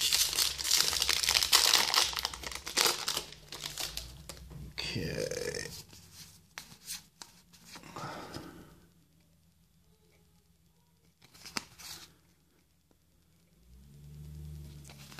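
A Magic: The Gathering booster pack's foil wrapper being torn open and crinkled: a loud, dense crackle for the first four seconds or so, then softer rustling as the cards are handled, fading out about nine seconds in.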